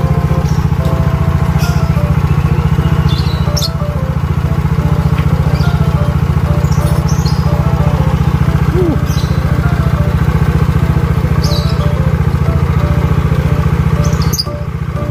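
Small Yamaha automatic scooter's single-cylinder engine running steadily, with a brief drop in level near the end.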